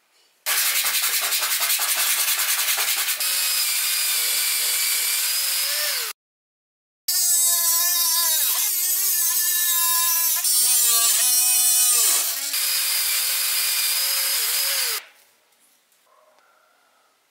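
Small handheld power tool working grey PVC plastic: a motor whine over a harsh grinding noise, its pitch sagging and recovering as the tool bites into the plastic. It runs in two long stretches with an abrupt break about six seconds in, and stops near the end.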